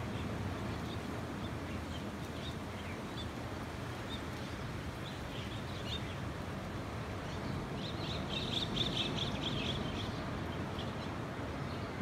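Birds chirping in short, scattered calls, with a quick run of rapid chirps about eight seconds in, over a steady low background rush.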